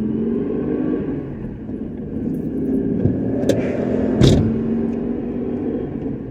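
2001 Nissan Xterra's engine running as the manual truck pulls away with the clutch engaging, its pitch stepping up and down. A click a little past three seconds and a sharp knock just after four seconds.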